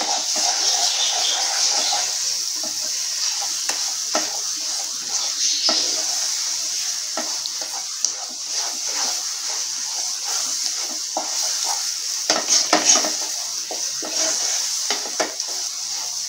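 A spatula stirs and scrapes thick, sticky banana halwa around a non-stick pan, in repeated uneven strokes, over a steady sizzle of hot ghee. The halwa is nearly done and is starting to release its ghee.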